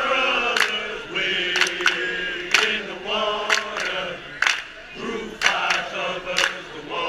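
A group of men chanting a fraternity song together, keeping time with sharp handclaps about once a second, some in quick pairs.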